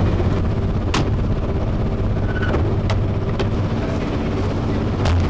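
Down-sorting machine's ventilation blower running with a steady low hum and a rush of air, as the down is blown and stirred through a wooden sorting chamber. A few sharp clicks sound over it, about a second apart at first and near the end.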